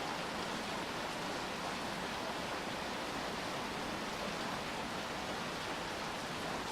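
Steady rain falling, an even, unbroken hiss with no single sound standing out.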